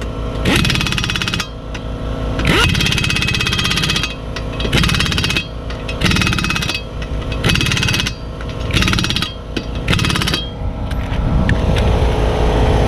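Half-inch air impact wrench run in about nine short bursts of rapid hammering as it tightens a car wheel's lug nuts. The bursts end about ten seconds in, and a steady mechanical noise carries on underneath.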